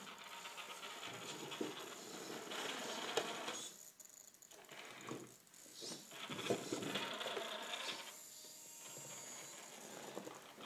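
Venom Creeper electric RC rock crawler driving in spurts over rocks, its drivetrain running with a clatter of small clicks and knocks as the tyres and chassis work against the rocks. It pauses briefly a few times.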